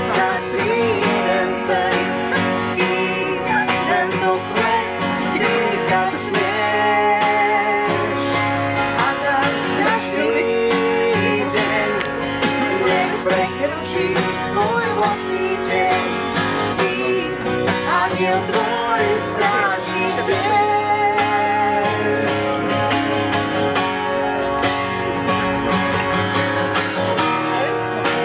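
Steel-string acoustic guitar strummed steadily, with a voice singing a song over it.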